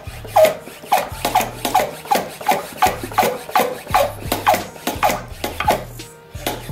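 Hand pump on a Motive Power Bleeder worked in quick strokes, about two to three a second, each stroke a short sound that falls in pitch, building pressure in the brake fluid reservoir toward 15 psi. The pumping pauses briefly near the end, then starts again.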